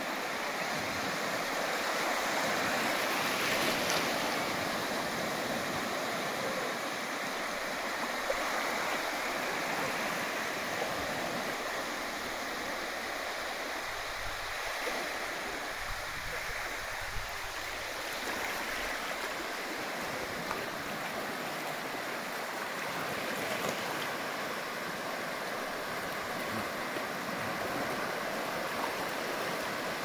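Sea waves breaking and washing up a sandy beach: a steady hiss of surf that swells a little about three seconds in.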